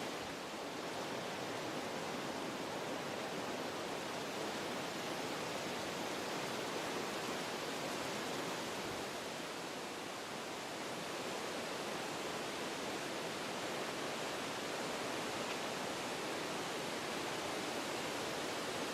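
Wind blowing through forest trees, a steady noise of moving leaves and branches that eases slightly about halfway through and then picks back up.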